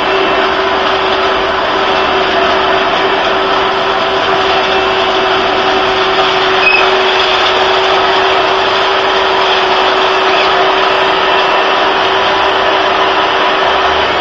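Vacuum cleaner running steadily: an even, loud rushing motor noise with a constant hum under it.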